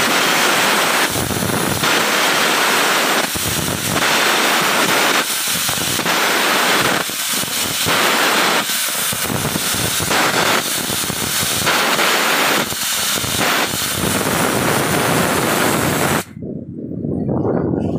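Electric arc welding on a steel ship's hull plate: a loud, continuous crackling hiss from the arc that stops suddenly near the end.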